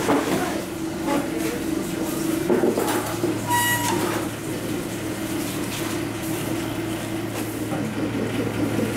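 Steady low machine hum of a commercial bakery kitchen, with scattered knocks and clatter of trays and crates, and one short electronic beep about three and a half seconds in.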